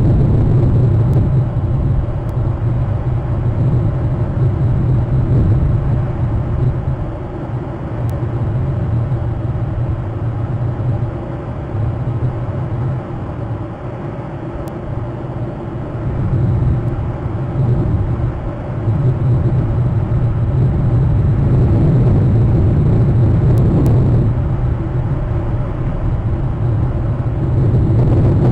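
Wind buffeting an outdoor microphone: a steady low rumble that swells and eases in slow gusts, softer through the middle and building again toward the end.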